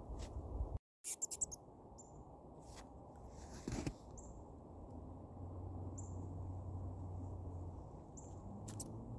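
A mole squeaking from its hole in the snow: four short, high chirps about two seconds apart. A brief scuffle of snow near the middle comes from a puppy nosing at the hole.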